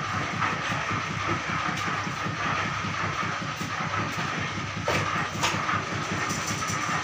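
Steady mechanical rattling and hum, with a few sharp metal clicks in the second half as the capstan handles of a hand-operated screw press for moulding plastic switch parts are spun.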